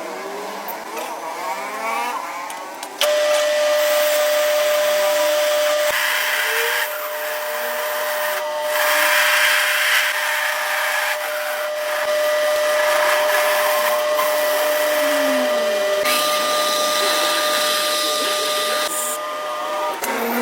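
An electric power tool's motor running with a steady whine over a hiss. The sound changes abruptly a few times.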